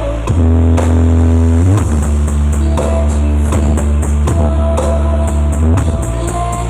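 Loud rock-style music with drums and heavy, sustained bass notes, played through a large horeg sound system during a sound check.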